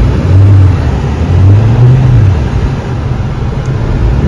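Car engine revving in two surges while the wheels spin in deep snow, failing to get the car moving: the car is stuck.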